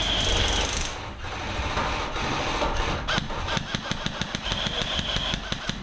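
Airsoft electric guns firing full-auto bursts: a high-pitched gearbox whine at the start and again near the end, and rapid sharp clicks of shots from about halfway through.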